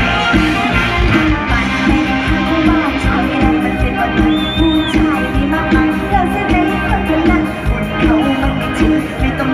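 Live Thai Isan mor lam band music played loud over a concert PA, with a steady drum beat and a singing voice. A short high whistle-like tone sounds about four seconds in.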